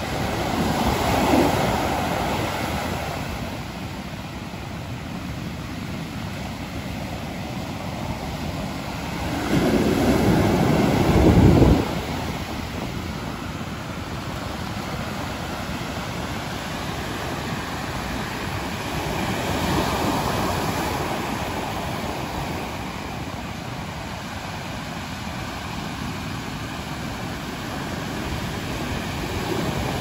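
Rough sea surf crashing and washing up a sandy beach, a steady rush that swells as each set of waves breaks, with the loudest and deepest surge about ten seconds in. Wind buffets the microphone.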